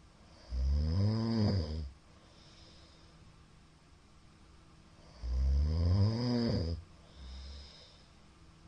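A middle-aged man snoring loudly in his sleep: two long snores about four and a half seconds apart, each rising and then falling in pitch, with a softer low breath just after the second.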